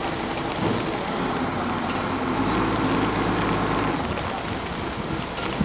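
Heavy diesel engine running under a steady rushing noise; the engine's low hum stands out most clearly for a couple of seconds midway.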